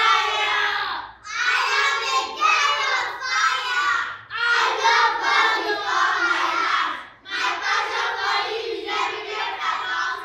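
A group of children's voices reciting a confession together in unison, in loud phrases a few seconds long with short breaks between them.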